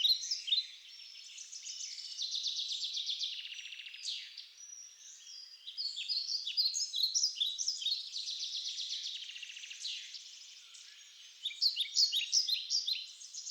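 Songbirds singing: overlapping short chirps and fast trills from several birds, with brief lulls.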